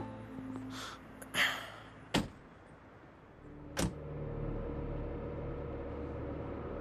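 Two car doors shut, one about two seconds in and the other a second and a half later, after some rustling as people get into the seats. A steady low hum of the car follows the second door.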